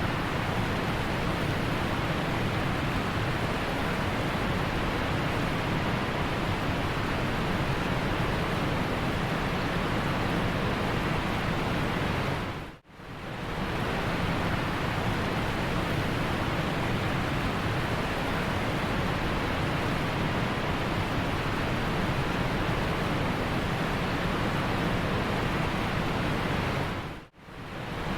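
Steady rushing noise with no distinct tone, briefly cutting out twice: once about halfway through and again near the end.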